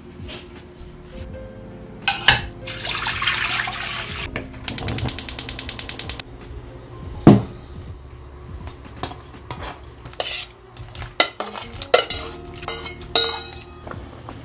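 Kitchen cooking sounds: a pot and metal utensils knocking and clinking, with one louder knock near the middle. A brief rushing noise early on is followed by a rapid, even ticking for about a second and a half, then a string of clinks toward the end.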